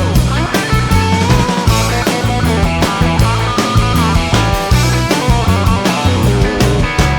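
Background rock music with drums and guitar at a steady beat; the drums drop out near the end, leaving a held chord.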